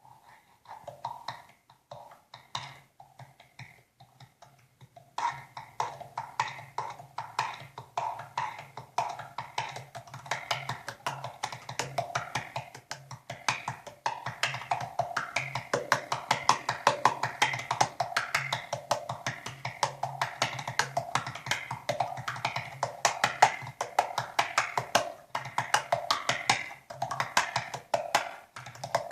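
3D-printed tongue drum struck by hand, picked up by a contact mic and played through an effects processor into speakers. A few sparse notes at first, then from about five seconds in a dense, fast run of struck notes over a steady low hum.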